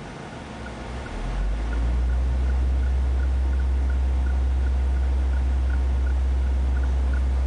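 A steady low machine hum swells up between one and two seconds in and then holds level, with faint light ticks over it.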